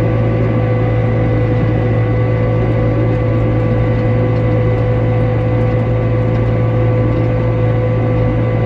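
Hay swather running steadily: a continuous engine and machinery drone with constant hum tones.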